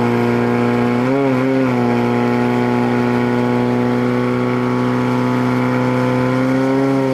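Portable fire pump engine running at high revs, a steady pitched drone with a brief waver in pitch about a second in. It is under load, driving water through the hoses to the nozzles.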